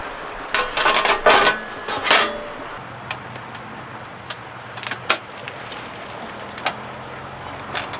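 Thin stainless-steel table plates and their metal frame clattering and clicking as they are fitted around a tent pole: a burst of rattling in the first two seconds or so, then scattered single clicks and taps.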